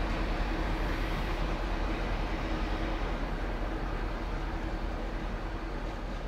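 Steady low mechanical rumble with a faint hum that fades out about halfway through, growing slowly quieter near the end.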